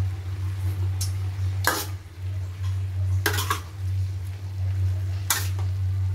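Metal spatula scraping and clanking against a steel wok while stir-frying vegetables, three strong strokes about two seconds apart, over a steady low hum.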